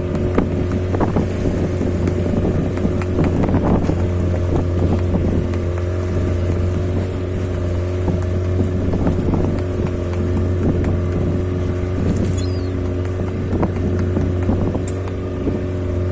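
Fishing boat's engine running at a steady hum, with scattered knocks and thuds as fish and gear are handled in the hold.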